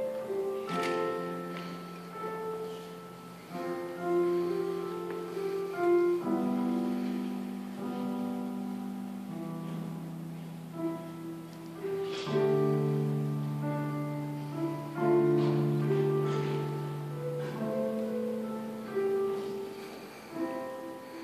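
Solo piano played slowly: sustained chords under a melody, a new chord struck every few seconds, each ringing on and fading before the next.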